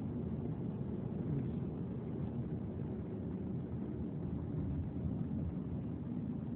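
Car driving along a street: steady low rumble of engine and tyres on the road.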